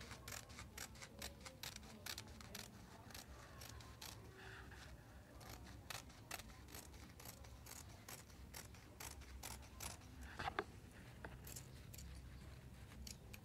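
Large scissors cutting through fabric: a faint run of crisp snips, several a second, with one louder click about ten and a half seconds in.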